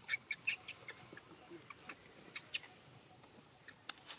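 Short, sharp animal calls: a quick run of chirps in the first half-second, then a few scattered single chirps.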